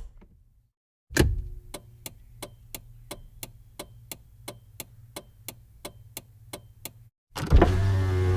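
Steady, even ticking, about three ticks a second over a low hum, opening with a louder hit; music starts near the end.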